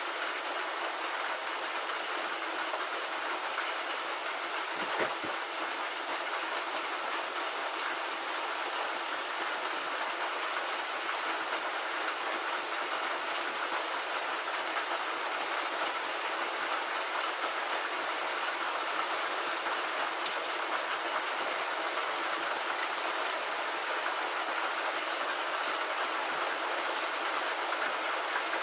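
Steady rain falling, an even hiss that runs without letting up, with a couple of faint knocks in it.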